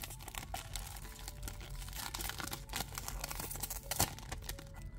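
Foil wrapper of a Pokémon Scarlet & Violet booster pack crinkling and tearing as it is worked open by hand: dense crackling, with one sharp crack about four seconds in.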